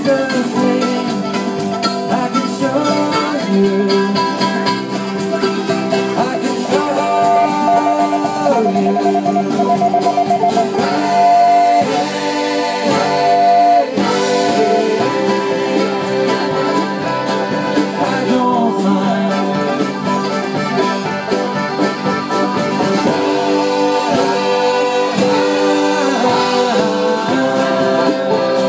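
A folk band playing live: acoustic guitar and other plucked strings with drums, and voices singing along.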